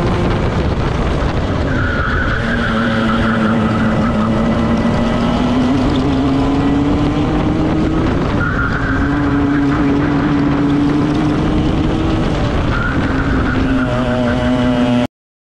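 Onboard sound of a two-stroke racing kart engine revving up through the straights and dropping sharply three times as it lifts for corners, with a brief squeal at each drop. The sound cuts off suddenly near the end.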